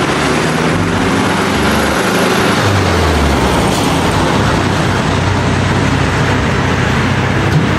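Steady vehicle noise: a low engine rumble with road hiss, running without a break.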